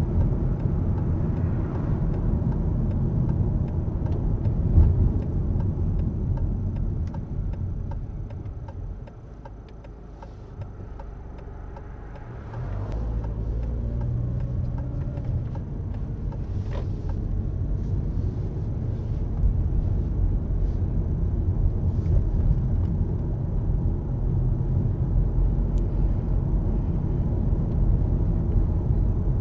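Car cabin road and engine rumble: it fades as the car slows for a right turn, then rises again about halfway through as the car pulls away and picks up speed.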